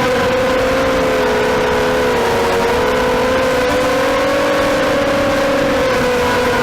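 FPV drone's motors and propellers whining steadily, the pitch wavering a little as the throttle shifts, with several close tones briefly pulling apart.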